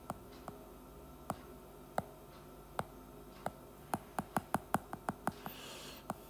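Keypresses on an iPad calculator app, each a sharp click: single taps spaced well apart, then a quick run of about eight taps just after the middle. A short soft hiss follows near the end.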